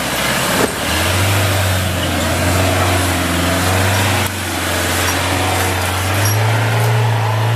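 Iveco EarthCruiser's diesel engine running at low revs as the heavy 4x4 truck crawls slowly over rocky ruts, a steady low hum whose note rises a little about six seconds in.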